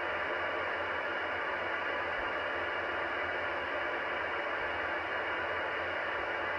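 Yaesu FT1900 2-metre FM radio's speaker giving a steady, even hiss of receiver static, with none of the nearby digital pager's interference breaking through: the radio's selective front end is rejecting the adjacent-frequency noise.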